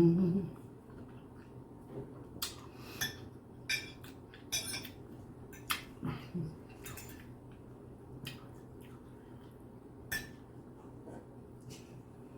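Eating utensil clicking and scraping against a dish or food container, about a dozen short, scattered clicks, with a brief hum at the very start.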